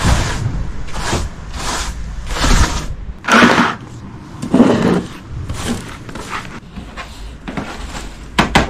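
Broom bristles sweeping sawdust across wooden floorboards in repeated strokes, roughly every half second, then a hand brush sweeping sawdust into a plastic dustpan in a few louder strokes. A few sharp knocks near the end as the dustpan is tapped out into a bin.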